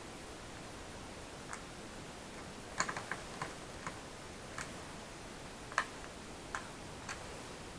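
Light, irregular clicks and taps of small tools and parts being handled on a laptop during disassembly, about ten in all with a quick cluster about three seconds in, over a faint steady hiss.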